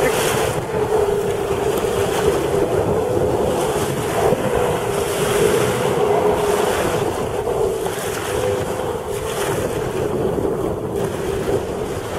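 Sea-Doo GTI jet ski running at speed in the distance, a steady engine drone that wavers a little as it turns. Wind buffets the microphone throughout.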